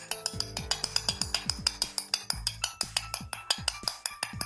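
Rapid light hammer taps on a metal drift, several a second, driving a ball bearing into a hammer drill's aluminium gear housing, over background music with a beat.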